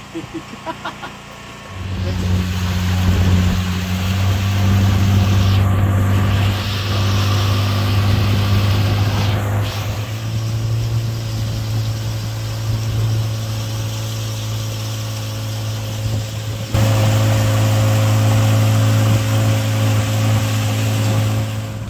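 A small fishing boat's engine starts up about two seconds in and runs steadily with a low, even hum as the boat gets under way. The sound changes abruptly once near the end.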